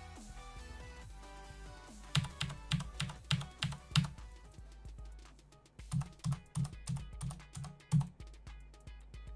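Background music, with two runs of sharp, evenly spaced clicks at about three a second, starting about two seconds in and again about six seconds in.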